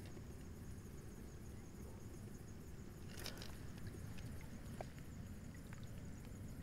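Muffled low rumble of water moving against a camera held underwater, with a few faint clicks and a short rustle about three seconds in.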